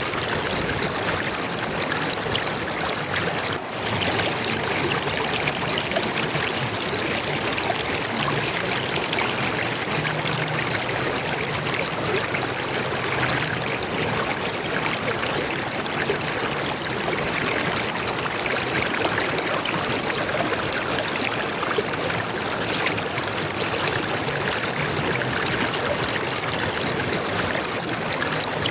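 Flowing water running steadily, an even rushing and trickling noise with one brief dip in level about three and a half seconds in.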